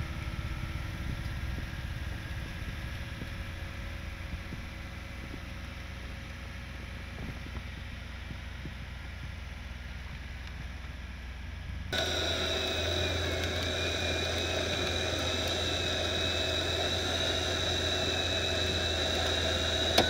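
Vehicle engines idling steadily while a car is winched sideways. About twelve seconds in the sound jumps louder, to a steady drone with a high, steady whine.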